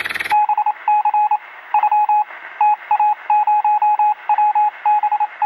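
Electronic beeping at one steady pitch, in irregular groups of short and longer beeps with brief gaps between them. About a third of a second in, the running of the converted air-compressor engine cuts off suddenly and the beeping begins.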